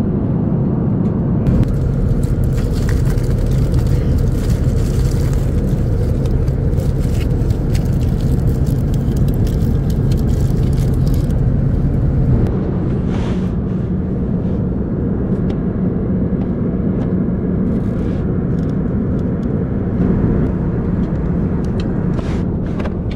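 Steady in-flight cabin roar of an Airbus A330-900neo in cruise, engine and airflow noise heard from a window seat over the wing, with a low hum that shifts slightly higher about halfway through. Scattered light clicks run through the first half.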